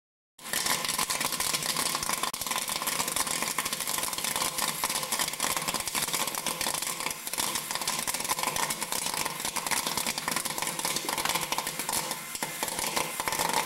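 Popcorn popping in a popcorn machine's kettle: a dense, continuous crackle of many small pops. It starts about half a second in and cuts off near the end.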